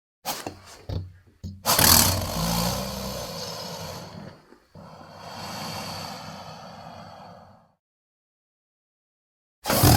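Nile crocodile sounds: a few short bursts, then two long, rough, low calls, the first the louder, each cutting off abruptly. A new loud call starts near the end.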